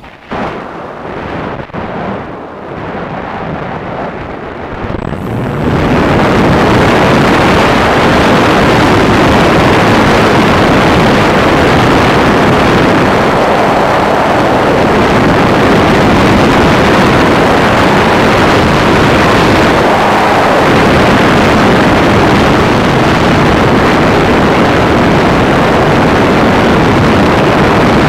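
Multiplex Solius RC electric glider's motor and propeller running, heard from the plane's own camera as a steady rushing noise mixed with wind over the microphone. The noise is gusty and lower at first, then rises sharply to full loudness about five to six seconds in and stays there as the plane climbs.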